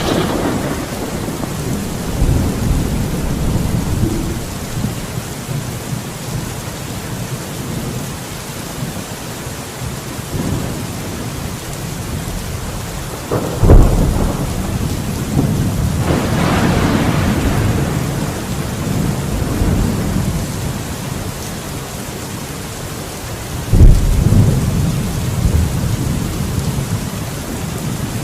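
Steady rain falling during a thunderstorm, with a sharp thunderclap about halfway through that rolls on in a long rumble, and another loud crack near the end.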